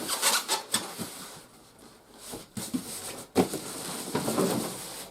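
Rustling and handling of toy packaging, with a few sharp knocks and clicks, the loudest about three and a half seconds in, as large plastic playset parts are taken out of their box.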